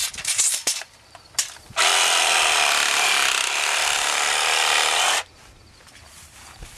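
A saw cutting through PVC pipe in one steady, unbroken cut lasting about three seconds, which stops abruptly. A few knocks and clatter of the pipe being handled come just before it.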